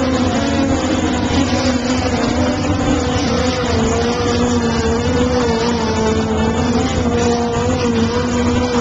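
Race car engines running at high revs, a steady loud drone whose pitch wavers slightly.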